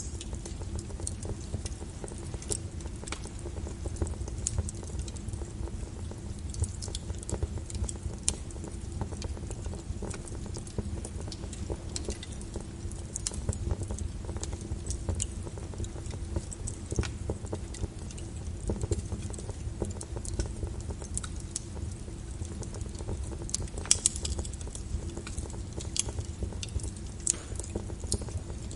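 Fire burning in a fireplace: a steady low rumble of flames with irregular crackles and pops, one louder pop about 24 seconds in.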